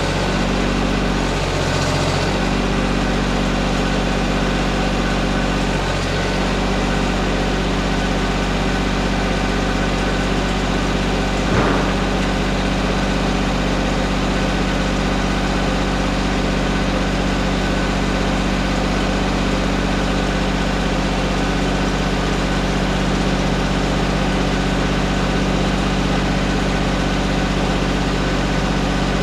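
John Deere compact tractor's engine idling steadily, with a brief shift in its tone in the first couple of seconds. A single knock sounds about twelve seconds in.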